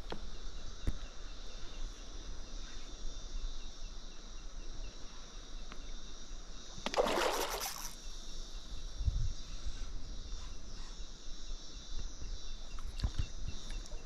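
Steady high-pitched insect chorus, with a short rushing burst of noise about seven seconds in.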